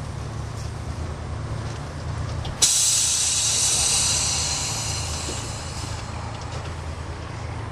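Vintage electric tram standing with a steady low hum, then a sudden loud hiss of compressed air from its air system, tailing off over about three seconds.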